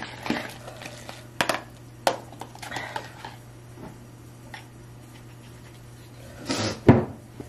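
Small-object handling: a few light clicks and knocks from a small bottle and a plastic food container being handled. Near the end comes a short rush of noise and then a sharp thump, the loudest sound.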